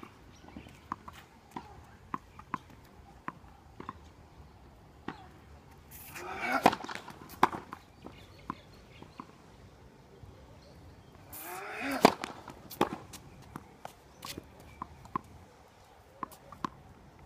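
Tennis ball bounced on a hard court, with light taps throughout and two sharp racket-on-ball strikes of serves, about seven and twelve seconds in. Each strike comes just after a short rising sound, and the second is the loudest.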